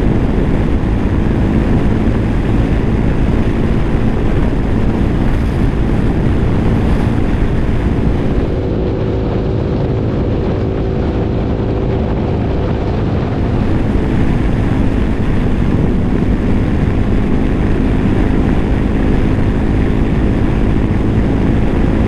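Motorcycle under way: steady wind rush over the microphone with the engine's hum beneath. The engine note shifts and the sound dips a little for a few seconds around the middle, as if the rider eases off the throttle.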